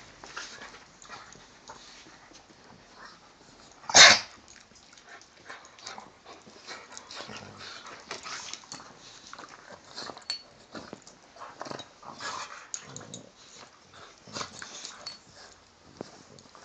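Two dogs play-fighting at close range: scattered snuffling, mouthing and rustling as one chews playfully on the other, with a single sharp bark about four seconds in.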